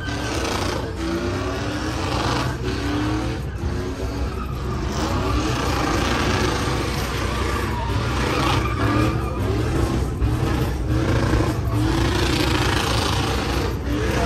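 Pickup truck engine revving hard during a burnout, its pitch rising and falling over and over, with the rear tyres spinning on the pavement.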